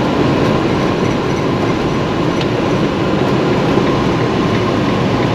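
Steady rumble of road and engine noise inside a moving motorhome, with a faint steady hum throughout.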